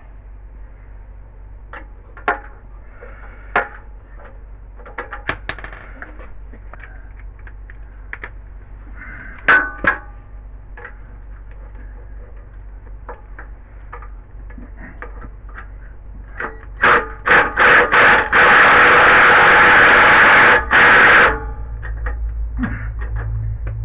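Scattered metallic clinks and knocks of tools and bolts against the engine mount. Near the end, a power driver with a wobble-joint extension runs for about four seconds, spinning a mounting bolt in.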